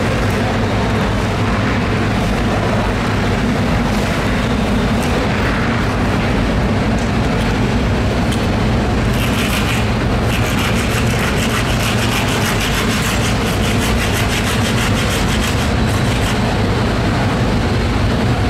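Steady low engine rumble, and from about halfway a rapid, even rasping that runs for several seconds as a long knife is worked through a swordfish loin.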